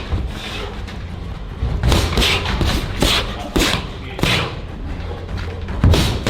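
Boxing punches landing with thuds, about half a dozen at irregular intervals, over background music.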